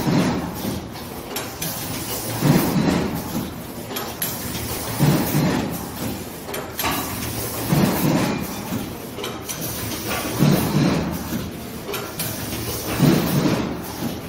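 Automatic double-loop wire binding machine running, a heavy mechanical cycle surging about every two and a half seconds over a steady machine noise.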